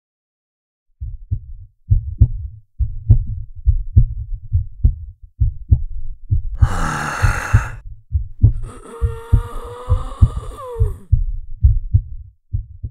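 Heartbeat sound effect: low, deep thumps at about two a second, starting about a second in. About halfway through a loud rasping burst lasts about a second over the beats, then a higher, wavering tone slides downward before the heartbeat carries on alone.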